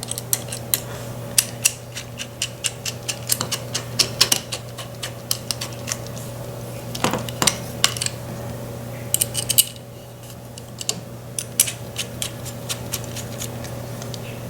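Crimping tool and its metal interchangeable dies clicking and clinking as they are handled and swapped, with many separate sharp clicks and a quick run of them about nine seconds in. A steady low hum runs underneath.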